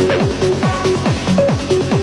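Techno music: a steady kick drum, about four beats a second, under a short repeating synth figure.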